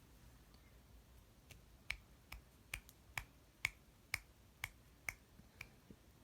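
A run of about a dozen short, sharp clicks, roughly two a second and unevenly spaced, starting about a second and a half in, over a quiet room.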